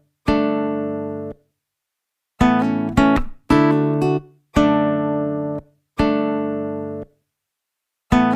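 Background music of plucked guitar-like chords, each held about a second and then cut off sharply, with short silent gaps between them.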